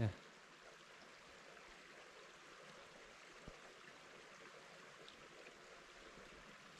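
Small forest creek running below a snowy slope, a faint steady rush of water. There is a brief low thump right at the start.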